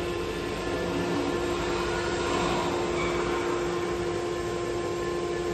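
A 4-axis CNC wood router's ATC spindle running with a steady whine over an even machine noise.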